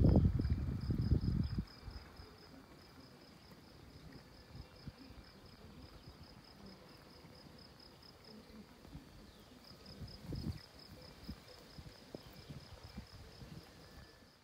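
A cricket chirping in a rapid, even train of high chirps at one pitch, pausing briefly about nine seconds in. Low rumbling thumps, the loudest sound, fill the first second and a half and come back briefly around ten seconds in.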